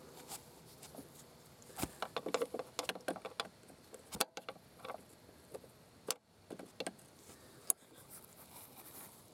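Screwdriver tip clicking and scraping against the plastic locking clips of the purge valve's wiring connector as they are pushed in to release the lock. There is a quick run of small clicks about two seconds in, then a few sharper single clicks later.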